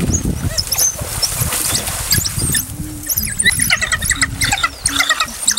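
African wild dogs giving their excited, high-pitched twittering and squealing calls in quick overlapping chirps while mobbing a red lechwe, over splashing in shallow water that is heaviest in the first second.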